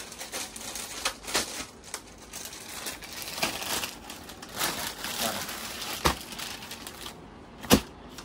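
Bed sheet packaging crinkling and rustling as a pack is handled and torn open, with two sharp snaps in the second half.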